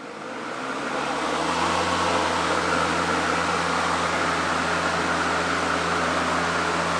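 Ryobi 40-volt brushless 20-inch lawnmower (RY40108) switched on with no grass to cut: the motor and blade spin up over the first second or so, then run at a steady speed with a constant low hum.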